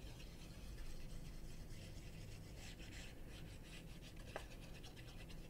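Faint scratching and rubbing as the fine plastic tip of a squeeze glue bottle is drawn across a paper label, spreading glue, with one light click a little past four seconds in.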